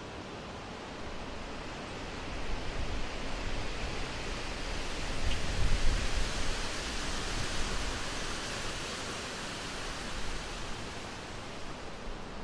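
Steady rushing hiss that swells through the middle, with a low rumble strongest about halfway through.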